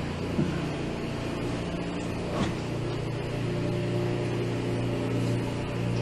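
A steady low mechanical hum, with a couple of faint knocks about half a second and two and a half seconds in.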